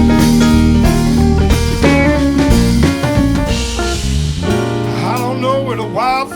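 Live band playing an instrumental break with drum kit, bass and guitar. About four and a half seconds in, the drums and bass drop away and a melody line with bending, sliding notes carries on.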